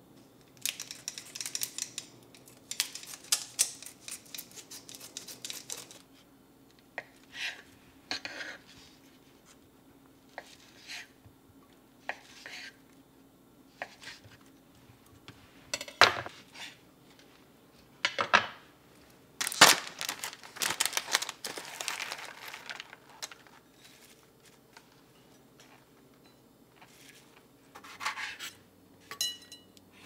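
Food prep on a bamboo cutting board: a kitchen knife cutting through firm tofu and knocking sharply on the wood, with crinkly rustling of plastic packaging in the first few seconds and lighter cutting of cherry tomatoes near the end.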